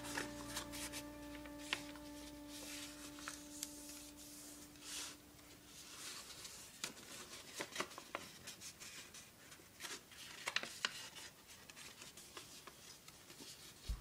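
A square of plain 80 g printer paper being folded by hand: faint scattered crinkles, soft rubs and light taps as the paper is shifted and creased.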